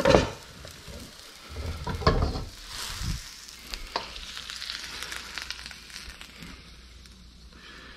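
Wok of boiled broccoli lifted off the burner and tipped over the sink: a few knocks of the wok and wooden spatula, then a hiss of the hot cooking water pouring off, fading near the end.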